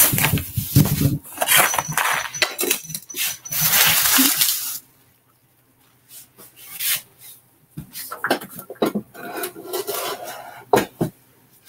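Kitchen handling noises: a copper canister clatters and is knocked on the counter, then a long scraping and rustling stretch. After a short pause come a few more sharp knocks and rustles.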